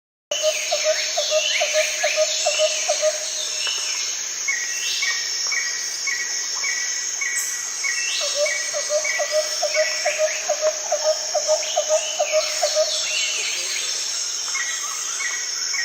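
Tropical forest ambience: a steady high buzzing of insects, with two runs of a low, rapid call, about five pulses a second, and a bird repeating a short high note about three times a second along with other descending chirps. It starts and stops abruptly.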